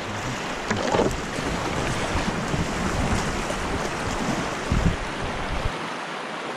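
Rushing river water around a packraft in rapids, an even hiss, with wind rumbling on the microphone. Two short thumps, about a second in and about five seconds in.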